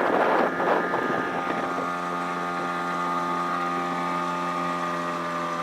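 9.8 hp Daihatsu outboard motor running at a steady speed on a small bass boat. Wind rushes over the microphone for about the first second and a half, then the engine's steady note comes through clearly.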